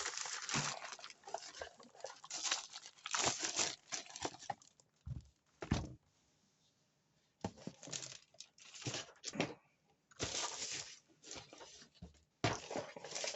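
Keyboard box being unpacked: irregular bursts of crinkling and tearing of packaging, with a couple of light knocks about five and six seconds in and a short pause after them.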